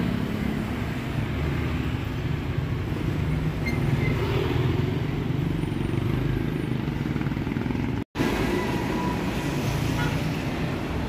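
Steady low rumble of road and traffic noise on a roadside ride, with a brief drop to silence about eight seconds in.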